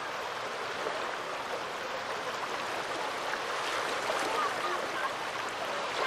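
Small waves lapping and washing at a sandy sea shore: a steady wash with light gurgles that grow a little louder in the second half.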